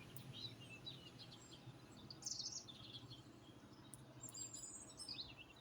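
Songbirds chirping faintly, with scattered short high calls and quick falling notes, the clearest bursts near the middle and toward the end, over a faint low hum.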